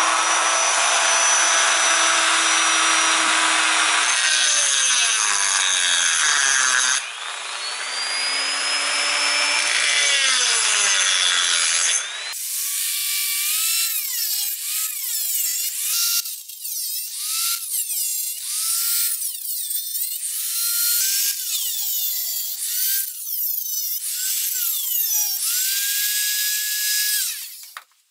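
Dremel Moto-Tool rotary tool with a cutoff wheel running at high speed, its whine shifting pitch a few times. From about twelve seconds in it cuts the sheet-metal frame of a small synchronous clock motor in a series of short passes, the pitch dipping and recovering with each one, then stops near the end.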